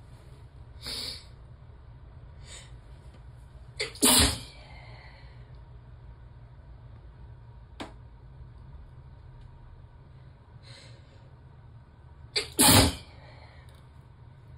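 A woman sneezing uncovered, loose and unrestrained: two loud sneezes, one about four seconds in and one near the end, each with a short sharp catch of breath just before it, and softer breaths in between.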